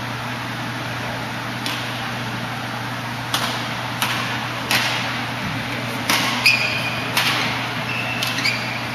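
Badminton rally: sharp racket strikes on the shuttlecock, coming closer together from about three seconds in, mixed with short squeaks of court shoes on the synthetic court floor, over a steady low hum.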